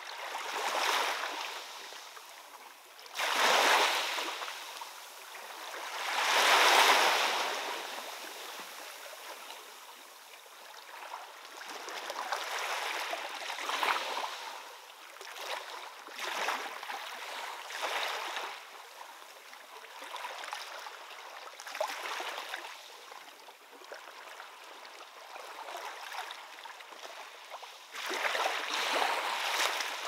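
Small sea waves washing in over low rocks and a coarse sandy beach, each one a rush of surf that swells and fades. The biggest come in the first seven seconds and again near the end, with smaller, gentler washes between.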